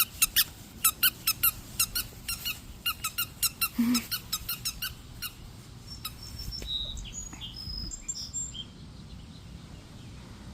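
Dog chewing a squeaky toy: quick, repeated squeaks, about three or four a second, that stop about five seconds in. Faint high chirps follow.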